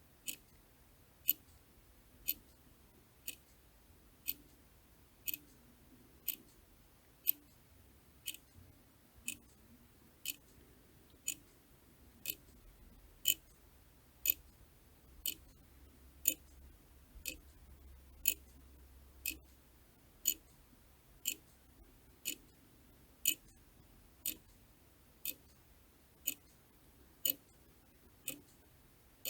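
Clock ticking steadily, one sharp tick about every second.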